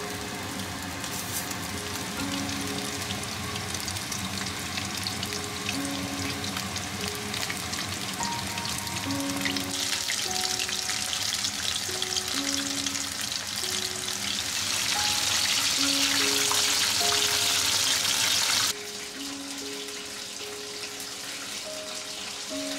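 Floured chicken pieces (karaage) deep-frying in hot oil in a pot: a dense sizzle with constant fine crackling. It gets louder about ten seconds in as more pieces fill the pot, then drops suddenly a few seconds before the end. Soft background music with simple melodic notes plays underneath.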